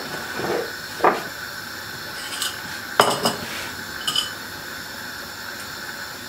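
Kitchenware being handled: a handful of clinks and clatters as a ceramic plate and a metal mesh strainer are set against ceramic bowls, the loudest knock about three seconds in, some with a short metallic ring. A steady hiss sits underneath.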